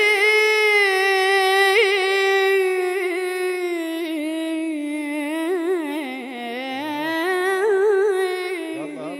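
A 12-year-old boy singing a Shia religious elegy solo, holding one long melismatic phrase whose note wavers and turns up and down in ornamented runs.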